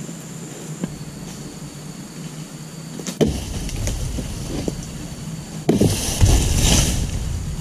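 A long-handled chisel blade chopping into the base of an oil palm frond, a few sharp chops. About two-thirds in comes the loudest part, a second and a half of rustling and cracking as the frond gives way and bends down.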